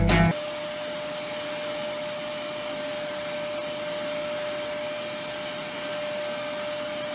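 Music cuts off just after the start, then a motor-driven appliance runs steadily: an even whirring noise with one constant hum.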